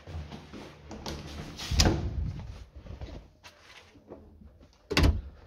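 A building's plastic-framed, glass-paneled entrance door being opened and swinging shut, with two loud knocks: one about two seconds in and a sharper bang near the end, amid rustling of the handheld phone.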